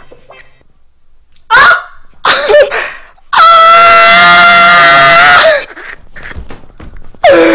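Loud, high-pitched human screaming: two short falling shrieks, then one long held scream of about two seconds, then two more shrieks near the end.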